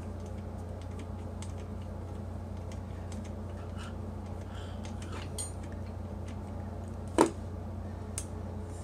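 Screwdriver turning the rear lock screw of a Belimo grate actuator in its steel bracket, with faint scattered metal ticks and clicks as the screw is driven in to push out the pin. One louder sharp clack comes about seven seconds in, over a steady low hum.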